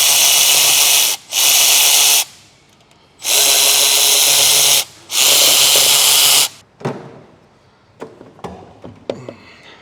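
A power tool run in four bursts of one to one and a half seconds each, followed by a few light clanks of metal tools.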